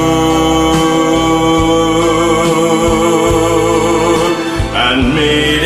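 Pop ballad backing track with a steady beat, and a male voice holding one long sung note with vibrato until almost the end, when a new phrase begins.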